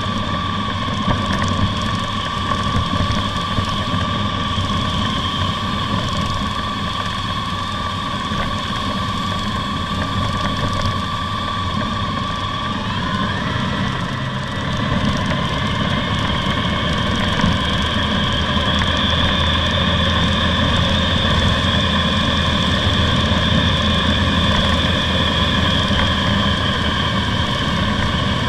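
Honda ST1300 motorcycle's V4 engine running at road speed, with wind rushing over the microphone and tyre and road noise beneath. About thirteen seconds in the engine note glides up in pitch and it stays a little louder from then on.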